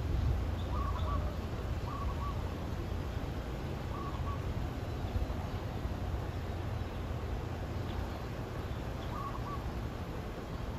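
Short, soft two-note bird calls, four of them spread out, over a steady low outdoor rumble.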